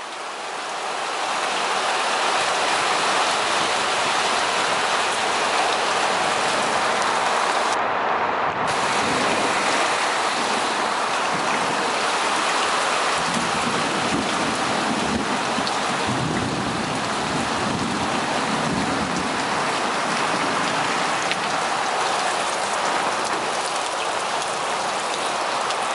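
Heavy thunderstorm downpour: a steady, dense hiss of rain pouring down, swelling up over the first couple of seconds. A low rumble of thunder comes in about halfway through.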